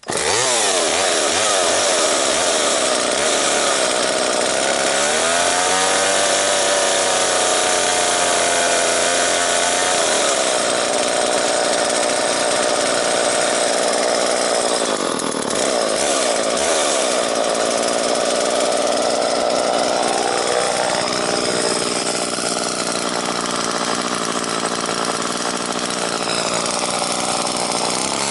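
Two-stroke chainsaw engine running steadily as it warms up, its speed wavering up and down a few times.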